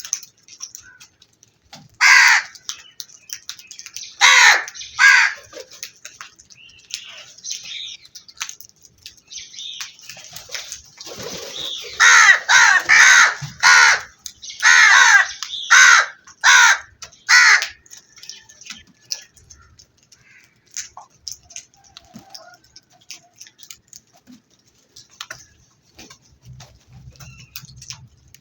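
Crows cawing: single harsh caws about two and four seconds in, then a quick run of about eight to ten caws from about twelve to seventeen seconds in, after which only faint scattered sounds remain.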